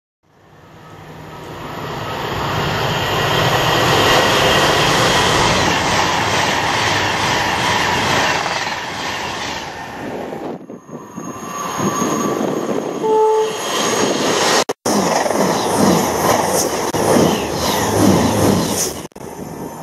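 Trains passing at speed through a station, in several cut-together clips: a loud rush that swells up over the first few seconds and holds, then after a cut a brief horn note, then the rhythmic clatter of wheels over rail joints as an electric Virgin class 390 Pendolino passes.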